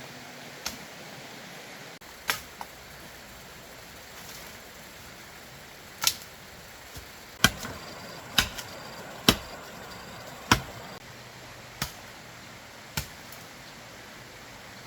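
Sharp, irregular knocks of a hand tool striking, about nine of them a second or so apart, the loudest in the middle stretch.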